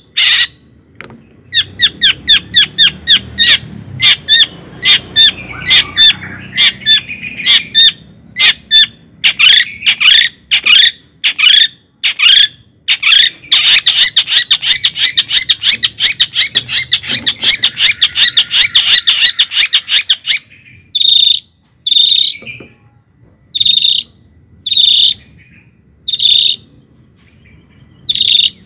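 A bird chirping loudly in fast runs of short notes, which thicken into a dense trill for several seconds past the middle. Near the end it gives single calls about once a second.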